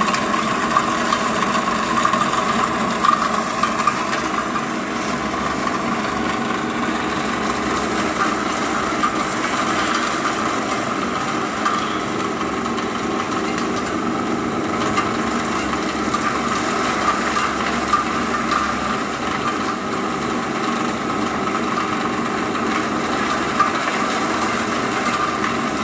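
Dry garlic peeling machine running steadily: a constant mechanical whirr with a steady whine, broken by a few sharp clicks.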